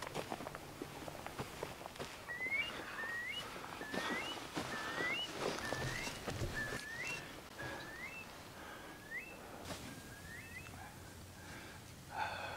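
A bird calling a series of about nine short rising whistled notes, evenly spaced about a second apart, with footsteps on grass in the first couple of seconds.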